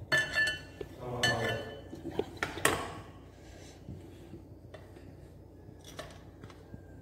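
Dishes clinking as steamed rice flour is scooped with a metal spoon into a glass bowl: a few sharp, ringing clinks in the first three seconds, then only light scattered taps.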